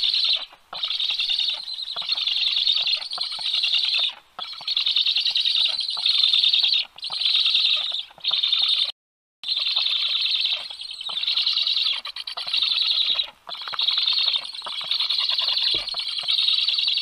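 Young black storks (Ciconia nigra) on the nest giving high, wheezy begging calls in rapid chattering bouts of a second or two with short breaks. The sound cuts out completely for about half a second near the middle.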